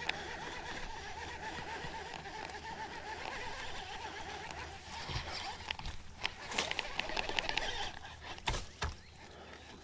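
A baitcasting reel handled and worked by hand: a run of light clicks and ticks, thickest in the second half and ending with a couple of sharper knocks near the end.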